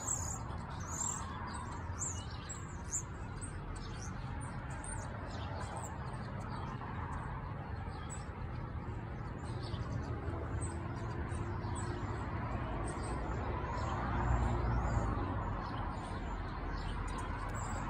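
A flock of small birds chirping: many short, high calls overlapping throughout, over a steady low background rumble.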